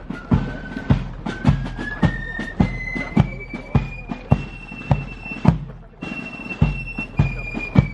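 Pipe-and-drum music: a single high pipe plays a slow stepwise melody over a steady drum beat of about two strikes a second, like a marching band.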